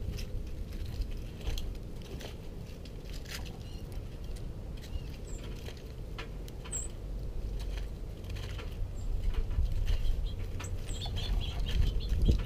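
Birds pecking and picking at seed on a snowy porch rail close to the microphone: a scatter of sharp taps and clicks, with a few brief high chirps in the second half, over a steady low rumble.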